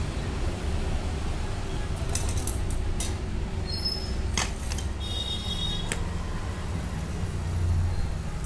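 Small metal clicks and clinks, a few times, as coil springs are handled and hooked onto the shoes of a scooter's centrifugal clutch, with a brief high ringing tone a little past the middle. A steady low rumble runs underneath.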